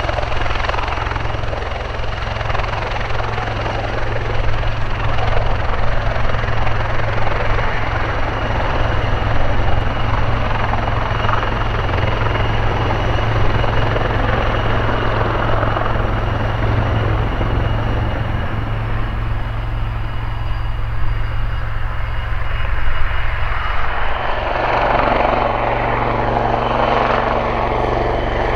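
AgustaWestland AW159 Wildcat helicopter in a low hover: a steady rotor beat with the whine of its twin turboshaft engines and the rush of rotor downwash. About 24 seconds in the sound changes and grows fuller as it pulls away into forward flight.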